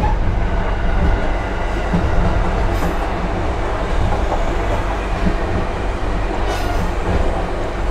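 KA Cikuray economy-class passenger train running along the track, heard from inside the coach as a steady low rumble of wheels and bogies, with a short burst of hiss about six and a half seconds in. The rider finds the coach's bogie damping lacking and the ride fairly noisy.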